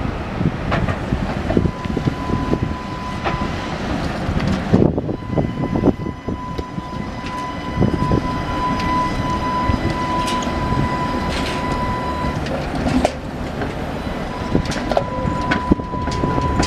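Tatra T3 tram running past, its wheels rumbling and knocking irregularly over rail joints and track work. A steady high tone sounds through most of the pass, breaking off for a moment about two-thirds of the way through.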